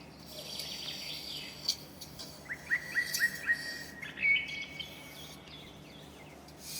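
Small birds chirping over a faint steady hiss, with a quick run of short chirps a little past the middle.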